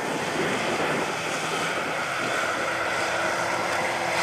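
Mud drag race vehicle's engine running steadily, with wind noise on the microphone; a steady low tone sets in about two and a half seconds in.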